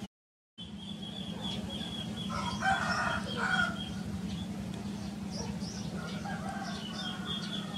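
A rooster crowing about two and a half seconds in, the loudest sound, with a fainter call from the fowl around six seconds in. Small birds chirp throughout over a steady low hum, and the sound cuts out completely for the first half second.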